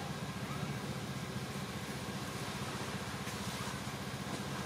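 A motor running steadily with an even, low hum.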